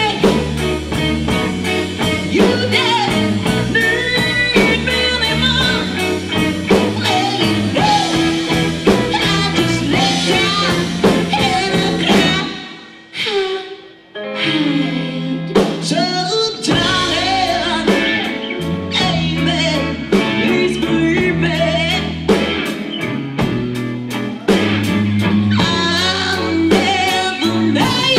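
Live blues-rock band playing, with singing, guitar, bass and drum kit. About halfway through, the band drops out for a couple of seconds, leaving a lone bending melodic line, then the full band comes back in.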